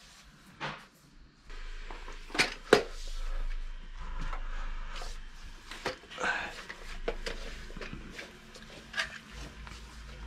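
Cleaning and handling sounds: a few sharp knocks and clicks of things being moved, with stretches of rubbing and wiping as caked, muddy dirt is cleared away.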